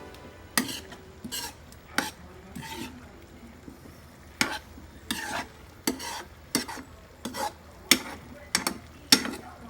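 A cooking utensil stirring meat in a pan, scraping and knocking against it in about fifteen irregular strokes, over a faint sizzle.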